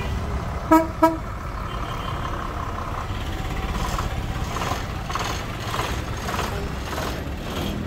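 Two short vehicle horn toots about a second in, over the steady low running of a bus engine close by.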